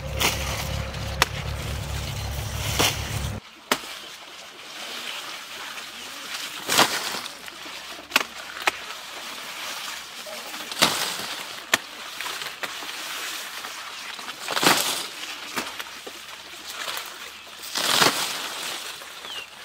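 A knife chopping sugarcane stalks in sharp single strikes, mixed with a handful of longer swishes of cane leaves rustling. A low steady hum is heard for the first three seconds and cuts off suddenly.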